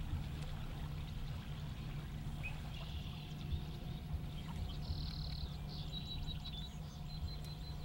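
Streamside outdoor ambience: a steady low rumble with faint running water, and a bird giving short, repeated high chirps in the second half.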